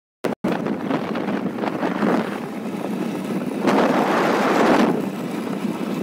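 Wind rushing and buffeting over a phone microphone while riding a two-wheeler at road speed, swelling louder for about a second just past the middle.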